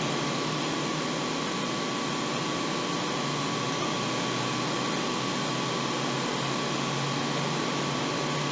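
Steady hiss with a faint, even hum and a thin steady tone: constant background noise, with no distinct event standing out.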